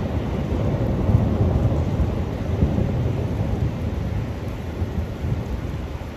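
Steady rain over a city, with a deep, wavering rumble underneath that swells about a second in and slowly eases.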